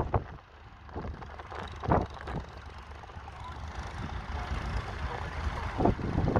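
Fordson Model N tractor's four-cylinder engine running under load as it pulls a plough away, a steady low rumble. Gusts of wind buffet the microphone, loudest about a second in, near two seconds and near the end.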